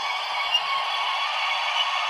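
Electric locomotive sound from an ESU LokSound 5 decoder in a Piko H0 BR 143 model, played through the model's small loudspeaker. It is a steady hissing running noise with a faint whine and no bass.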